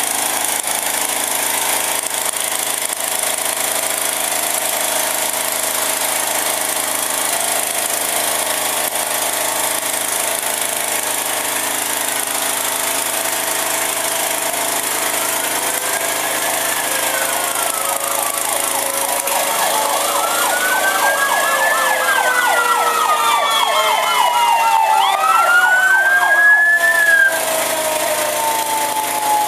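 Fire truck sirens wailing, several overlapping, each rising and falling in pitch, with a fast yelping siren pulsing for a few seconds in the middle. They come in partway through and grow louder near the end, over a steady hissing background noise.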